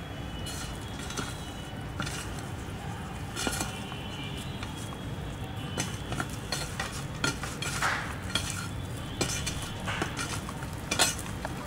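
Hands handling oiled dough balls in a stainless steel bowl: scattered soft knocks and light clinks against the steel, over a steady background hum.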